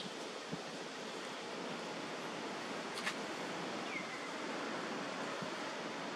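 Steady outdoor background hiss, with a faint sharp click about three seconds in and a short falling chirp about a second later.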